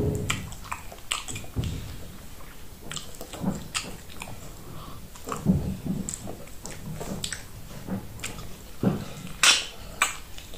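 Close-up wet chewing and lip-smacking of a person eating fufu and okra soup with her fingers. Irregular clicks and smacks, a louder pair about nine and a half seconds in.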